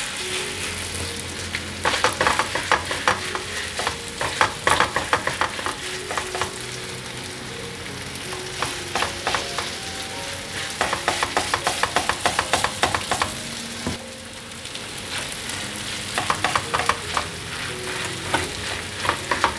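Shredded taro and pumpkin pancake mixture sizzling in oil in a nonstick frying pan, while a silicone spatula presses and pats it flat in repeated clusters of quick scraping taps.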